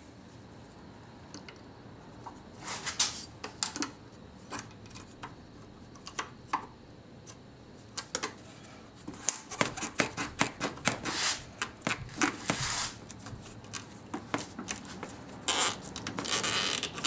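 Pliers and hands working rubber hoses and spring hose clamps off an engine's intake tube: irregular clicks, scrapes and rubbing. They come in clusters about three seconds in, busiest from about nine to thirteen seconds, and again near the end.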